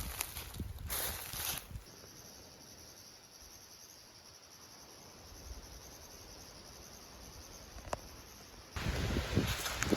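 Insects chirring outdoors, a steady high-pitched trill in a quieter stretch, with a single click about eight seconds in. Louder rustling noise covers it for the first couple of seconds and again from about nine seconds.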